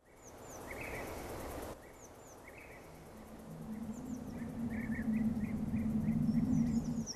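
Outdoor ambience that fades in from silence, with birds chirping in short repeated calls over background noise. In the second half a low steady hum grows gradually louder.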